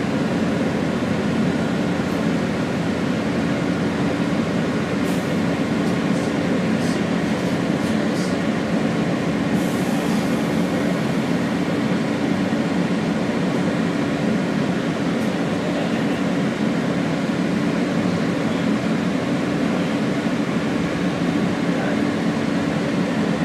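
Steady rumble and hum inside an R160 subway car, with a few faint clicks and rattles a few seconds in.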